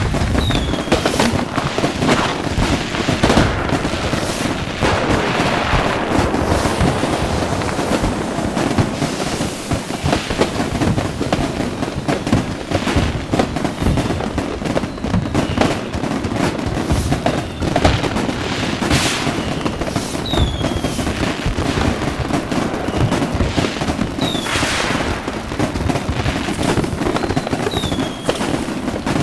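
Fireworks going off in a dense, unbroken barrage of bangs and crackling, with a few short falling whistles from rockets.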